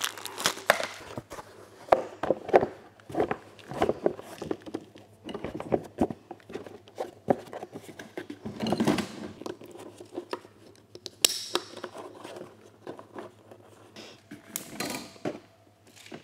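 Handling noise of plastic gear: irregular clicks, knocks and rustling as black plastic battery boxes are fitted on a hand truck and a strap is worked around them, with a louder stretch of rustling about nine seconds in.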